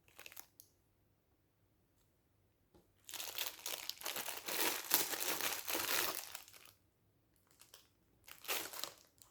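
Packaging crinkling and tearing as it is handled and pulled open: a short rustle at the start, a long stretch of crinkling from about three to nearly seven seconds in, then a few more rustles near the end.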